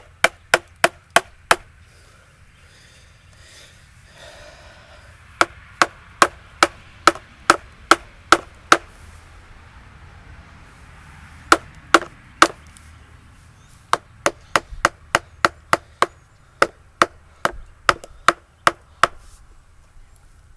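Mallet striking a wood chisel into a log, in runs of quick, even blows about three a second with short pauses between the runs.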